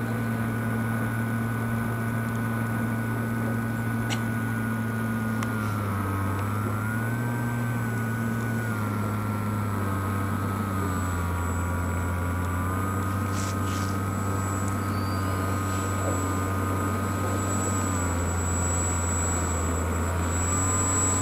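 Electric motor and propeller of a Skywalker RC plane running steadily on its landing approach, the pitch stepping down and back up a few times as the throttle changes. A thin high whine grows stronger in the last few seconds.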